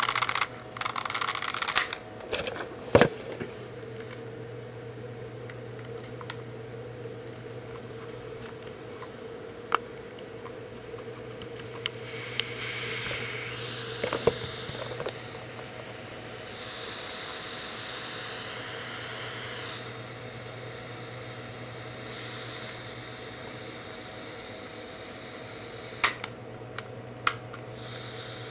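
A Sony handheld recorder plays back a recording of phone calls through its small speaker. It is heard faintly as a steady hum and hiss with no words to make out, hard to understand. Clicks and handling of the recorder come in the first few seconds, a louder stretch of hiss comes around the middle, and two sharp clicks come near the end.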